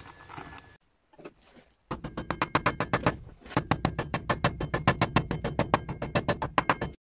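Short fizz of vinegar on washing soda, then a hammer striking a sickle's steel tang held in a bench vise: a fast, even run of blows, about six a second, each with a faint metallic ring. The blows pause briefly midway and stop abruptly near the end.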